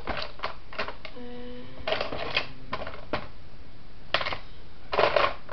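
Plastic makeup items clicking and clattering together as hands rummage through a full makeup bag, with a brief low hum about a second in.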